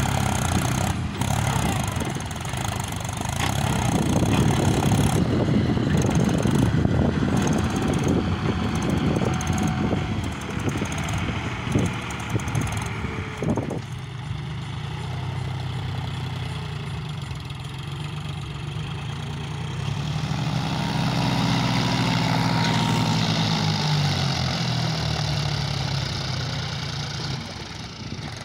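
Three-cylinder diesel tractor engines working hard under load as a Mahindra 265 Power+ drags a fully loaded sand trolley through soft sand, with a second tractor's engine running alongside. The engine note swells and shifts in pitch for several seconds in the second half as the throttle is opened.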